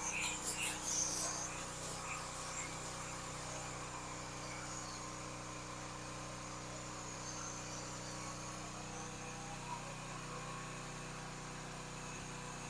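A steady, quiet machine hum with an even low drone, with faint insect chirping in the first second or so.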